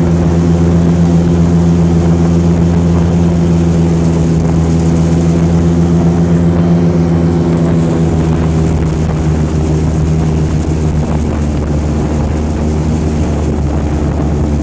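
Airboat's engine and rear air propeller running at a steady cruise, a loud continuous drone; about halfway through the pitch wavers and drops slightly as the throttle eases a little.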